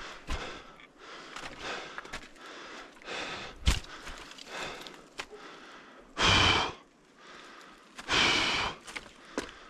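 Heavy, laboured breathing of a climber straining on a frozen descent: a run of breaths, with two long, loud exhales about six and eight seconds in. A single sharp knock sounds a little before four seconds.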